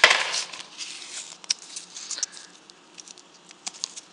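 Packaging of a Zippo replacement wick being worked open by hand: a loud rustle at the start, then scattered crinkles and small clicks.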